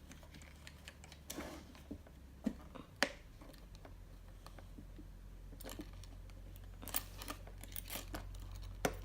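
Scattered light clicks and taps of a toy key being fiddled into the lock of a wooden doorbell-house toy door, over a low steady hum.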